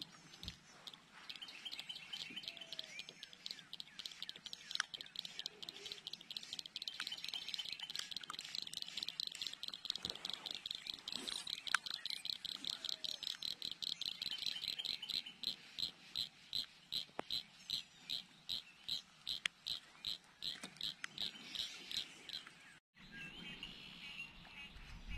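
A long train of short, high-pitched clicking calls from a pond-side insect or frog, dense through the middle of the stretch, then spacing out to about three or four a second before stopping near the end.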